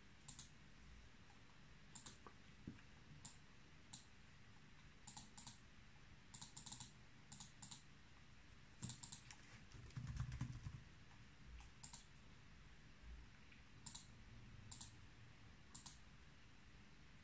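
Faint computer mouse clicks, some single and some in quick runs, as menus and dialog buttons are clicked. A duller low bump comes about ten seconds in, over a low steady hum.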